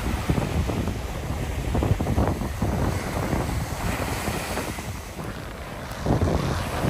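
Wind buffeting the microphone in uneven gusts over small waves breaking and washing up the sand. The gusts pick up again about six seconds in.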